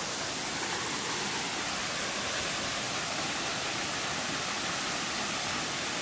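Steady, even rush of a waterfall cascading over rock.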